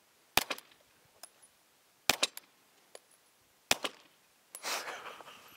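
Three suppressed 9mm pistol shots from a Springfield Armory Hellcat Pro with a threaded barrel, fired with subsonic ammunition, evenly spaced about a second and a half apart, each followed closely by a smaller click. A soft hiss comes near the end.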